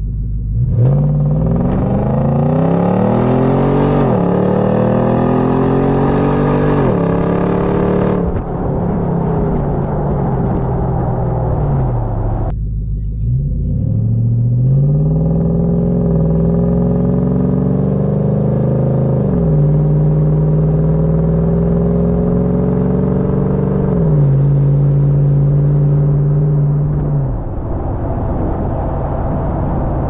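Nissan Y62 Patrol's 5.6-litre V8 through a Pacemaker exhaust with secondary cat-delete pipes, accelerating hard: the revs climb and drop back at two quick upshifts, then it lifts off. After a cut, a gentler acceleration climbs through the gears with two more upshifts and eases off near the end.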